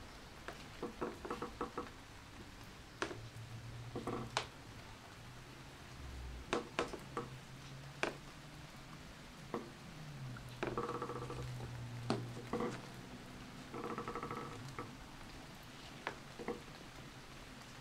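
Footsteps on old wooden boards: irregular knocks and crackles, with several short creaks as the boards flex under weight, the longest creaks a little after ten seconds in and again around fourteen seconds.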